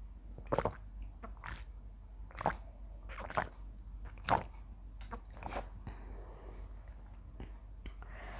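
A person gulping juice from a carton: short swallowing gulps, roughly one a second, with brief pauses between.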